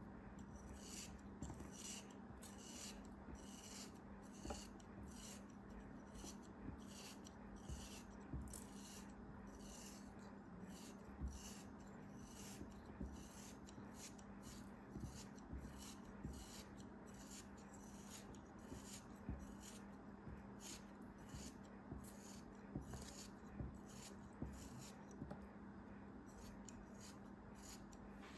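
Faint, rhythmic scraping or cutting strokes, a few a second and evenly repeated, over a steady low hum.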